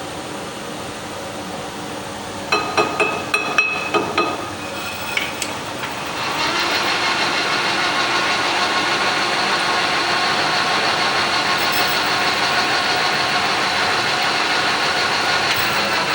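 About seven quick ringing metal strikes, like a hammer tapping on a steel part. Then a machine lathe starts and runs steadily with a held whine, which begins to wind down at the very end.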